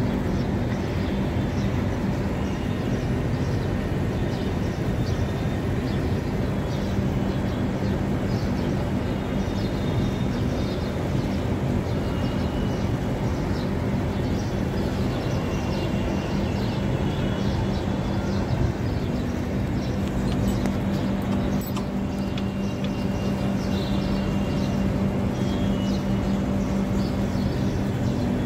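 Air-conditioning outdoor unit running with a steady machine hum, while the newly brazed compressor joints are checked for leaks. Faint bird chirps come through over the hum.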